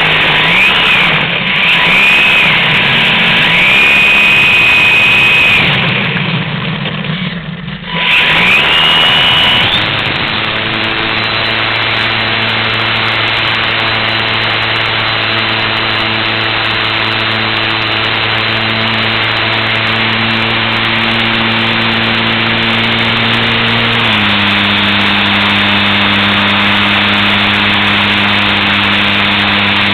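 Onboard sound of a Super Cub LP radio-controlled model plane's electric motor and propeller: a whine that rises and falls in pitch for the first ten seconds or so as the throttle is worked, then a steady drone in flight that drops a step in pitch a little past two-thirds of the way through as the throttle is eased back.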